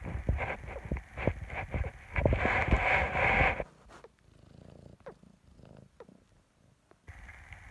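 Cat purring close by: a fast run of low pulses that stops abruptly about three and a half seconds in and starts again near the end.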